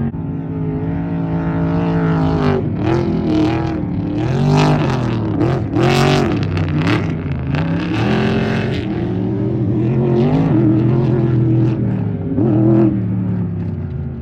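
Off-road race truck engine revving hard, its pitch climbing and dropping again and again as the throttle is worked, loudest in the middle.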